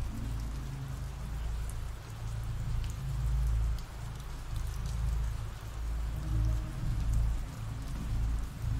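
Steady rain falling, with scattered faint drop ticks, over a low humming drone that swells and fades.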